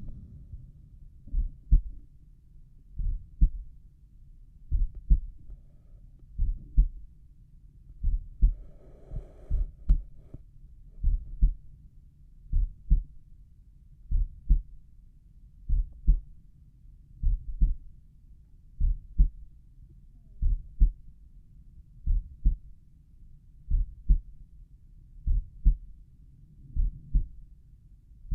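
Human heartbeat heard through a stethoscope at the tricuspid valve area: slow resting heart with paired lub-dub thumps, about one beat every one and a half seconds.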